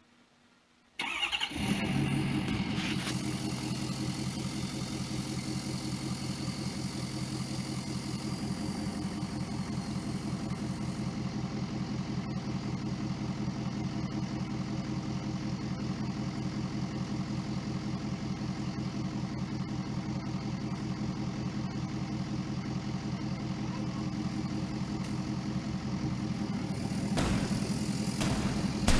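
An engine starts about a second in, catching at once, then idles steadily with an even rhythm; it changes and grows briefly louder near the end.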